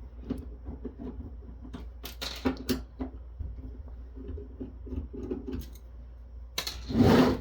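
Hand screwdriver working screws out of a metal network-switch chassis: small clicks and metal scrapes, with a louder clatter of handling near the end.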